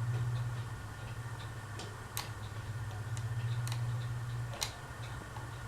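Dayton Leading Edge industrial ceiling fan running: a steady low motor hum with a light ticking about twice a second. After a click about four and a half seconds in, the hum gets weaker.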